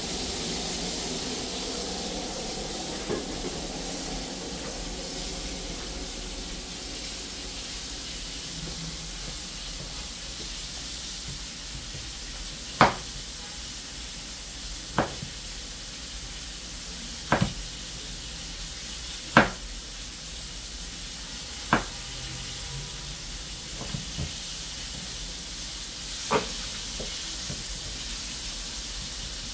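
Steady hiss of food cooking on the stove, with sharp knocks about every two seconds in the second half, as from a utensil against the pot.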